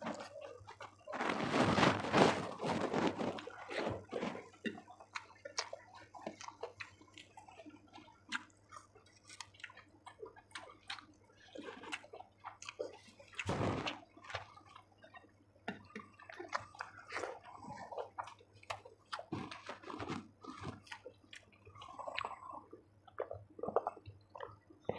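Close-miked eating sounds: wet chewing and mouth smacks over chicken curry and rice, with many short irregular clicks and a louder burst of chewing about two seconds in.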